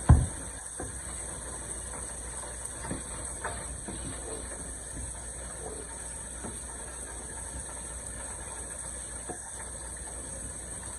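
Okra, shrimp and sausage cooking in a pan on a gas stove: a steady hiss and hum, with a wooden spoon stirring and lightly scraping the pan now and then. A sharp knock sounds right at the start.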